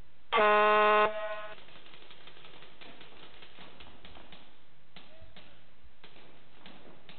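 An electronic start horn sounds once for just under a second, signalling the start of the point. After it come scattered sharp clicks of shots from the players' markers.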